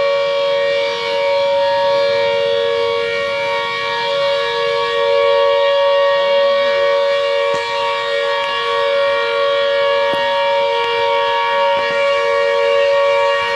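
Jail high-alert siren sounding one steady, held tone, set off as a security drill.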